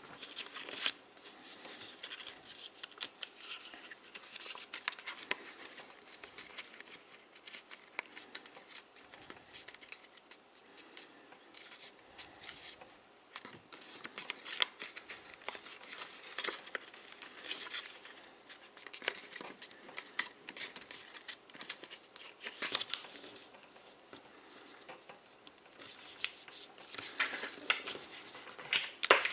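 A sheet of paper being folded and creased by hand: on-and-off rustling with short, sharp crackles as the flaps are pressed and shaped, loudest in a few clusters of crinkling.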